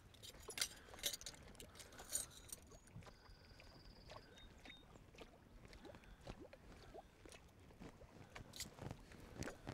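Faint water lapping and sloshing against a boat's hull, with scattered small ticks and clicks and a brief thin high tone a little after three seconds in.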